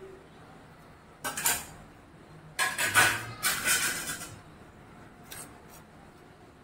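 Stainless steel dishes and a ladle clattering and scraping as idli and sambar are served. There is a short burst of clatter, then a longer one in the middle, then a couple of faint clicks.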